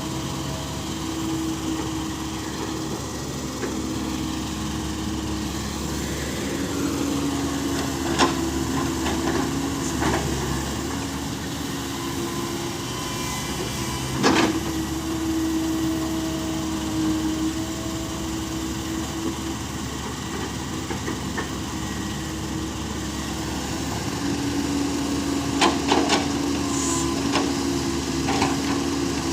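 Small six-wheel truck's engine running with a steady drone that steps up and down in pitch, with a few sharp knocks, the loudest about halfway through.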